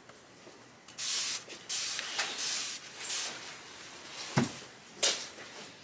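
Hand trigger spray bottle spritzing water onto a flat sharpening stone: about four quick hissing squirts, wetting the stone before honing. Then a knock and a click as the bottle is handled.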